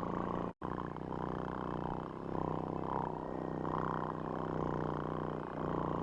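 Small DC motor spinning a plastic propeller, running with a steady buzzing hum that wavers slightly; the sound cuts out completely for an instant about half a second in.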